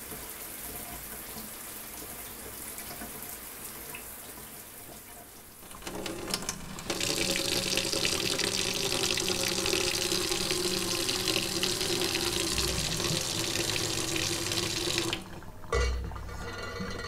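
Water running steadily from a tap for about eight seconds, then shut off, followed by a couple of short knocks.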